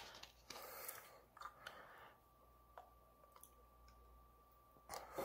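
Quiet handling of a plastic water bottle: the cap twisted open with soft crinkling and clicks in the first second or so, then near silence with a few faint ticks.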